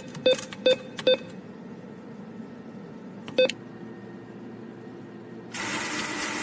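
Short keypad-style beeps as the buttons of a mock cardboard ATM are pressed: three quick beeps in the first second, one more about three and a half seconds in. A steady rushing noise starts near the end.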